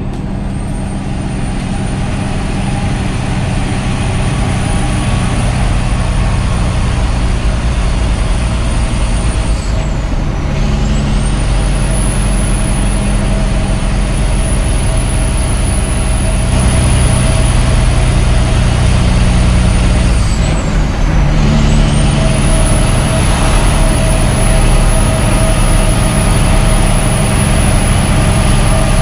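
Cab sound of a Kenworth T800's Cummins ISX diesel engine running steadily, growing louder over the first few seconds, with a high turbo whistle over it. Twice, about ten and twenty-one seconds in, the whistle dips and recovers as the driver changes gear on the Eaton Fuller manual gearbox.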